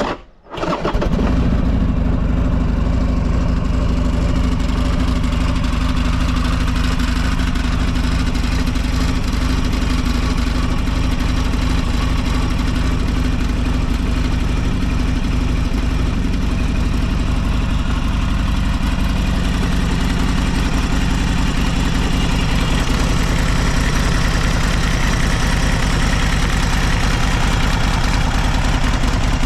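Buell XB12SS Lightning's air-cooled 1203 cc V-twin idling steadily. The seller presents it as quiet and free of abnormal noises.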